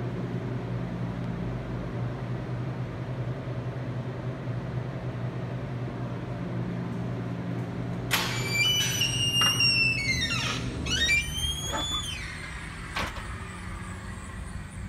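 A steady low hum, then a door squealing on its hinges as it swings open, a squeal that slides up and down in pitch for about four seconds. A single knock follows near the end.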